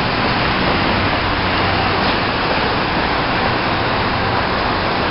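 Steady city street ambience: an even, unbroken roar of traffic noise.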